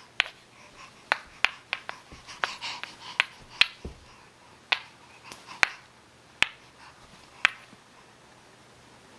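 Two wooden toy blocks knocked together by a baby: about fourteen sharp clacks at uneven intervals, bunched in the first few seconds and stopping after about seven and a half seconds.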